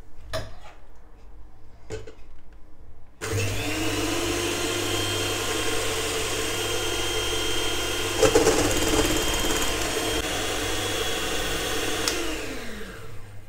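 Bluesky electric hand mixer whipping cream in a stainless steel bowl: after a few light clicks the motor starts suddenly about three seconds in, runs steadily with the beaters churning the cream, then winds down, its pitch falling as it is switched off near the end.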